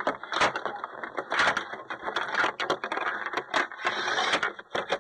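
Plastic K'nex toy robots clattering and knocking together as they are pushed against each other by hand, a dense, irregular run of clicks and rattles.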